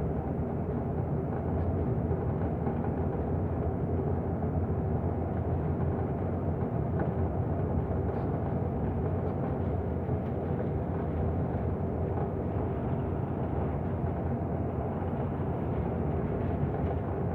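Steady engine and road noise inside the cabin of a moving bus, a constant low rumble cruising along a straight road.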